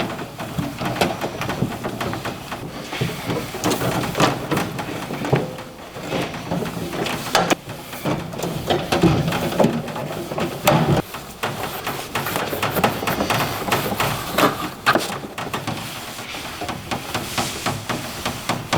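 Irregular clattering and knocking of metal as tools and the drawers of a steel toolbox are handled and moved about.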